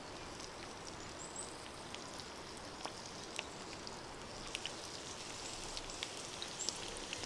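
Light rain setting in: scattered raindrops tapping over a steady hiss, the drops coming more often in the second half.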